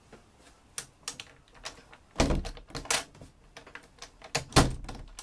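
A run of irregular clicks and knocks, with two heavier thumps about two seconds and four and a half seconds in.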